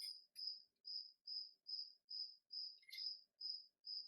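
A cricket chirping steadily, a little over two short, high chirps a second, with a faint click about three seconds in.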